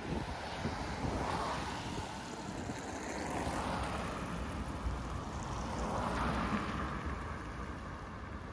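City street traffic: the noise of passing cars swells and fades, once about a second in and again about six seconds in.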